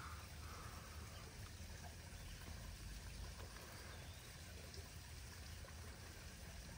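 Faint, steady trickle of running water from a backyard koi pond waterfall.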